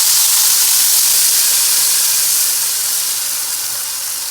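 Wet ground paste of fried horse gram, onion, tomato, garlic and spices hitting hot coconut oil and sizzling hard with a steady loud hiss that slowly eases off.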